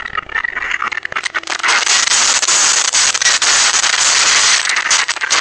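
Shop goods and bottles rattling on their shelves and clattering to the floor as the building shakes in an earthquake: a dense racket of knocks and clinks that swells about a second and a half in and eases near the end.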